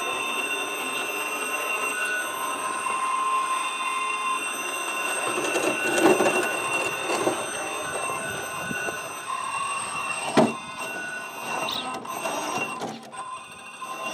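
Axial SCX6 rock crawler's Castle Mamba X ESC and 3BRC Black Jacket 860kv brushless motor whining under throttle as the truck crawls over rock. The high whine comes and goes, and there is a sharp knock about ten seconds in.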